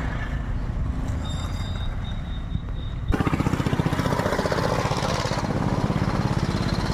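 A small engine running steadily with a fast, even chug; it gets louder after a sudden change about three seconds in.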